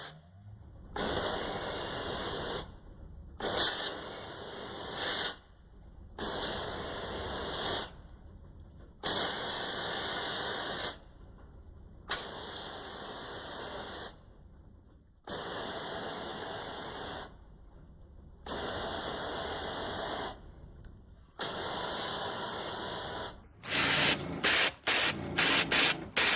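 Spraying in repeated bursts of about two seconds each with short pauses between, typical of a sprayer rinsing an air conditioner's coils and filters. Near the end comes a louder, quicker run of short bursts.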